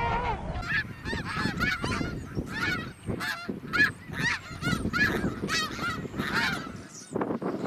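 A flock of snow geese honking, many calls overlapping in quick succession. The calls begin about half a second in and thin out near the end.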